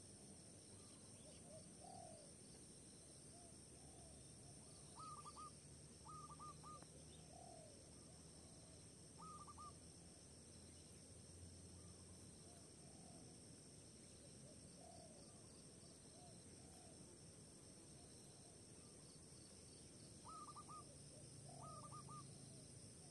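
Faint wild bird calls: short clusters of quick notes, repeated several times a few seconds apart, over a steady high drone of insects.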